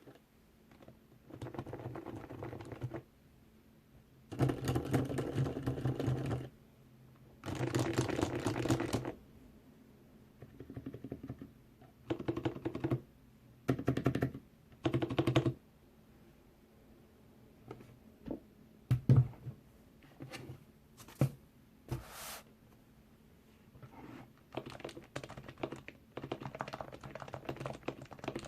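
Typing on a lubed, silenced keyboard: runs of rapid, muted keystrokes lasting a second or two, separated by pauses. A few sharper single key presses come about two-thirds of the way in, and steadier typing follows near the end.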